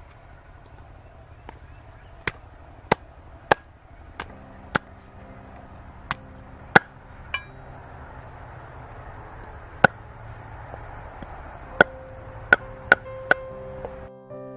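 Meat cleaver chopping a raw chicken into pieces on a wooden chopping board: about a dozen sharp, unevenly spaced chops, coming closer together near the end.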